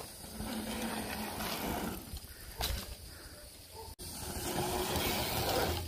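Mountain bike tyres rolling down a steep ramp, a rushing tread hum that swells as each rider passes, twice, with a sharp click about midway.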